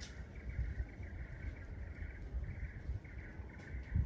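Steady drone of insects buzzing, swelling and fading unevenly, over a low rumbling noise.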